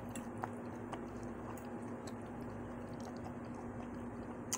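Faint chewing of a mouthful of rice cakes and kimchi: a few soft mouth clicks and a sharper click near the end, over a steady low hum.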